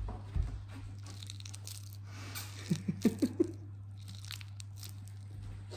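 Hands squeezing and picking up a sticky oat-and-honey biscuit dough in a bowl: scattered small clicks and rustles over a steady low hum.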